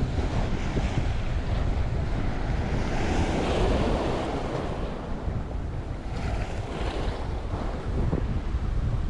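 Sea waves washing and splashing at a flooded seafront, under wind buffeting the microphone; the wash swells about three seconds in and again about six seconds in.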